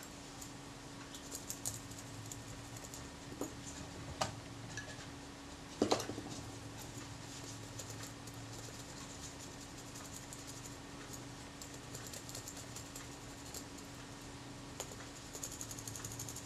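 Light clicks, taps and scratching as a cotton swab is rubbed over a small metal shutter mechanism plate and the plate is turned in the fingers, with one louder knock about six seconds in. A steady low hum runs underneath.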